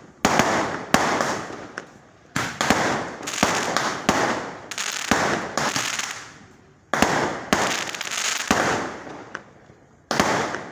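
Fireworks going off in rapid succession: a dozen or so sharp bangs, each trailing into a crackle that dies away within about a second. They come in bunches with short lulls about two, seven and nine seconds in.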